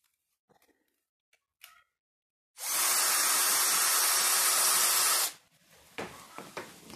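Bosch cordless drill/driver running steadily for a little under three seconds, driving a screw through the metal bracket that clamps the handle to a wooden broom head, then stopping. A few light clicks and knocks of handling come before and after it.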